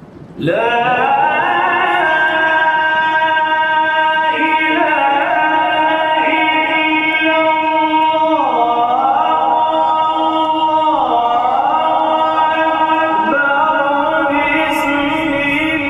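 A male reciter chanting Quran in the melodic, drawn-out style of a formal recitation. He rises into one long melismatic passage about half a second in and holds notes that shift slowly up and down in pitch.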